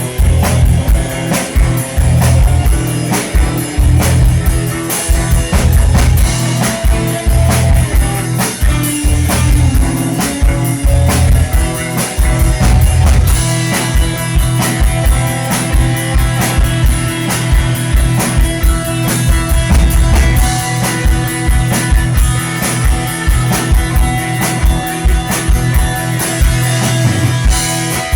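Live post-punk rock band playing an instrumental passage without vocals: electric guitar over a driving drum kit beat and a heavy bass line, loud and steady.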